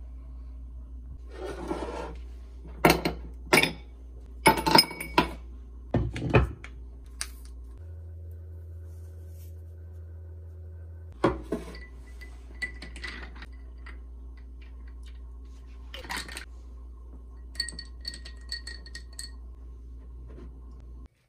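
Glass jars and a drinking glass being handled on a kitchen counter: sharp knocks and clinks, loudest a few seconds in, and a short run of ringing glassy clinks near the end, over a steady low hum.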